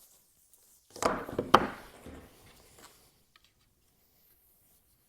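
Spring clamps being put onto wooden bow rockers: about a second in, a second of handling noise with one sharp click of a clamp closing on the wood, then a few lighter knocks.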